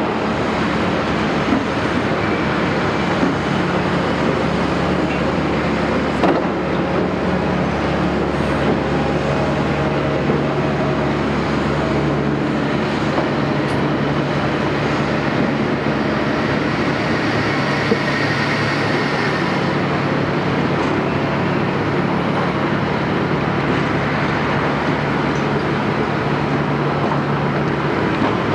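Caterpillar 329E excavator's diesel engine running steadily under load, with a few sharp knocks, about two seconds in, six seconds in and near eighteen seconds.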